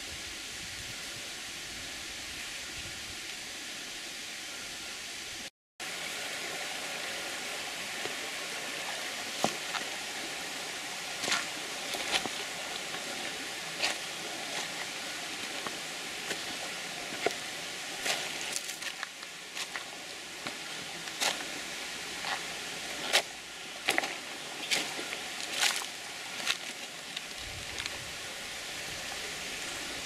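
Footsteps crunching irregularly on dry leaves and stones over a steady hiss, with a brief dropout to silence about five seconds in.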